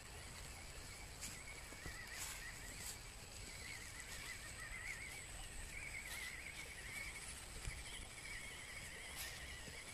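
Faint, wavering high whine of a 1/18-scale RC crawler's small electric motor and geared drivetrain running at part throttle, coming and going, with a few light clicks and background hiss.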